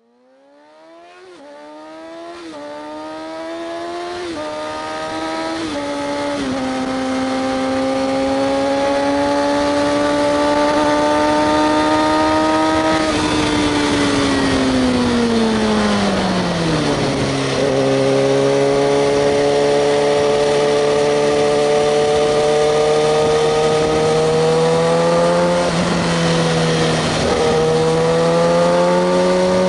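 Kawasaki ZX-6R 636 inline-four engine, fading in as it accelerates up through the gears, its pitch climbing and dropping at each of about four quick shifts. It then holds a steady high cruise and falls off as the bike slows about halfway through. It settles at a lower steady speed, rising slowly with two brief dips near the end.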